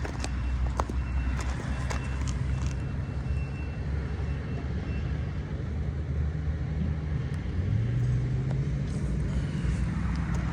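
Engine running steadily at low speed, with a few light clicks in the first three seconds and a small rise in engine pitch about eight seconds in.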